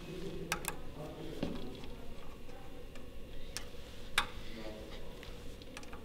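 A few light, scattered metallic clicks and ticks as screws and a hex key are handled and set into the screw holes of the actuator's handwheel flange.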